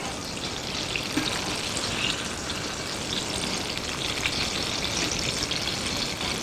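Apple fritters deep-frying in hot oil: a steady sizzle with fine crackling and occasional pops.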